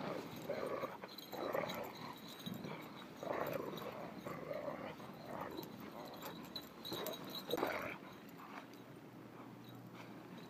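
Dog giving several short whines and barks a second or two apart, agitated by a person lying in the snow flapping out a snow angel.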